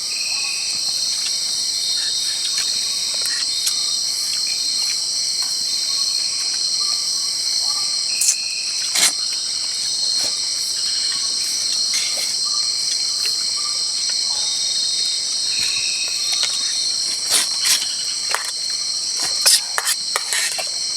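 Night insect chorus: crickets and other insects trilling steadily at a high pitch, with occasional sharp clicks and knocks.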